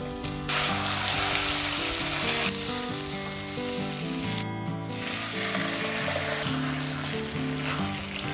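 Food sizzling in hot oil in a frying pan, a steady hiss that breaks off briefly about four and a half seconds in, over background music.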